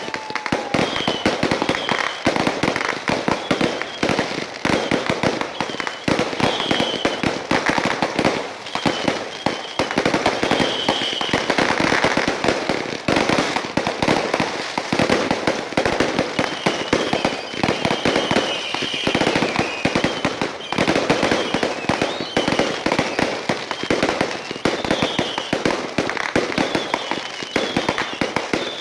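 Fireworks going off without pause: a dense, rapid run of pops and crackles, with short high warbling whistles now and then.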